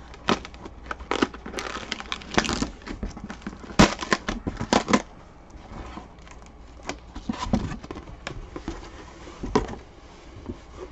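Packing tape on a corrugated cardboard box being slit with a small cutter and the box flaps pulled open: irregular sharp crackles, scrapes and tearing, the loudest about four seconds in.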